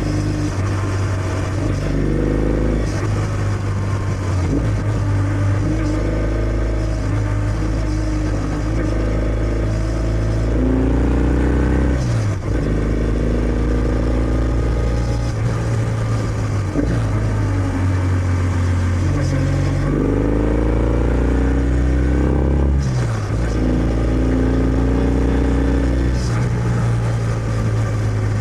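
Kawasaki W650's air-cooled parallel-twin engine through its stock exhaust, ridden on the road: the engine note rises as the bike accelerates and drops sharply at each upshift, about four times, between spells of steady cruising.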